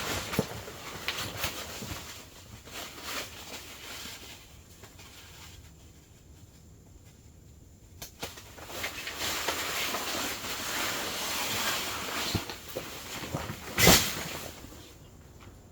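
Footsteps crunching irregularly along a wet trail, then several seconds of rushing wind-and-rain noise, with one sharp loud knock about two seconds before the end.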